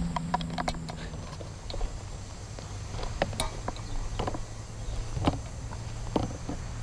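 Scattered light clicks and knocks of hands handling a Mouser OD 32 stainless PCP air rifle. There is a quick cluster in the first second and the loudest knock about five seconds in, over a low steady hum.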